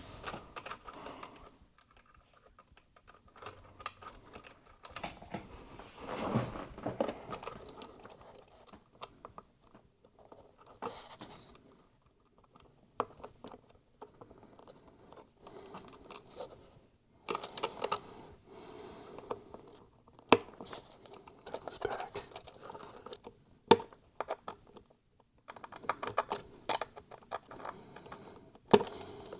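Irregular small clicks, taps and scrapes of cables and connectors being handled and pressed into place inside an opened iMac.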